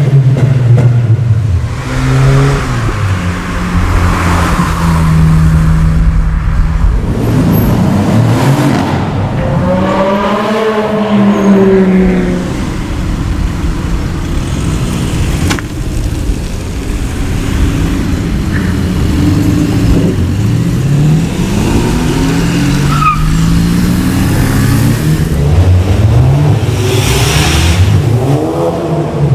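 Performance cars accelerating hard past one after another, their engines revving up through the gears. One car sweeps close by about ten seconds in, with a rise and fall in pitch as it passes.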